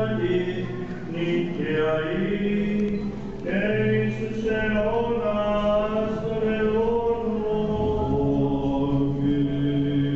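Byzantine chant: Orthodox hymn sung by chanters, a slow melismatic melody held over a steady low drone (the ison), which moves to a higher note near the end.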